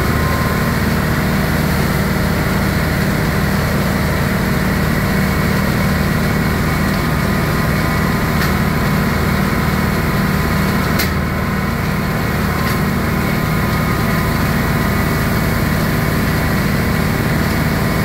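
Kubota straw chopper running off a John Deere 2750 tractor's PTO, chopping bales and blowing the straw out its spout: a loud, steady drone of tractor engine and chopper, with two faint sharp clicks about eight and eleven seconds in.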